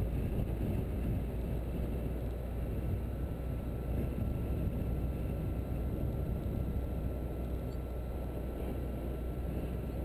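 A car driving steadily along a paved road: a low, even rumble of road, engine and wind noise with no changes.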